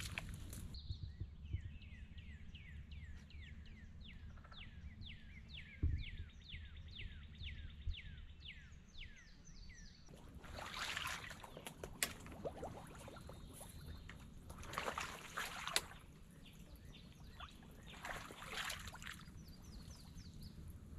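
A bird calling a long series of quick down-slurred notes, about three a second, over a low rumble. Then come bursts of swishing, sloshing noise as a person wades through tall grass and shallow marsh water.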